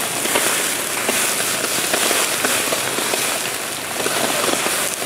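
Open fire burning around the bases of plastic 275-gallon IBC totes, crackling steadily with many small sharp pops.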